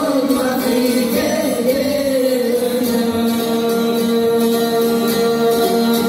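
Albanian folk song: a voice singing over long-necked lutes (çifteli). The melody wavers at first, then settles about halfway through onto one long held note.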